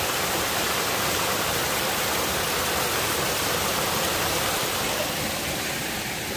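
Steady rush of falling water from a waterfall, an even noise that thins slightly about five seconds in.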